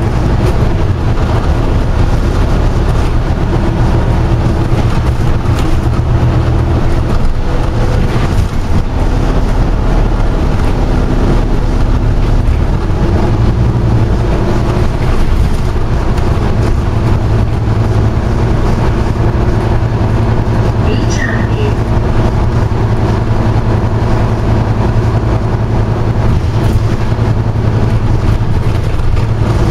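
Scania OmniCity single-deck bus in motion, heard from inside the passenger saloon: a loud, steady low engine drone with road noise, its pitch shifting now and then as the bus speeds up and slows.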